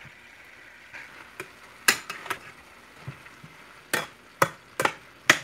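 A cooking utensil knocking against a stainless steel pan while stir-fried vegetables are stirred, with about six sharp clacks, most in the second half, over a faint frying sizzle.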